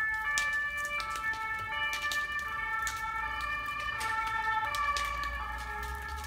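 Background music: held tones that shift in pitch every second or so, over a low bass and a light, regular beat.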